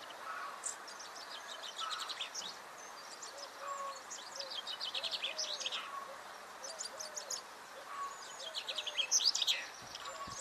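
Wild songbirds singing: repeated phrases of fast high trills a few seconds apart, with shorter, lower whistled notes underneath, over a faint outdoor hiss.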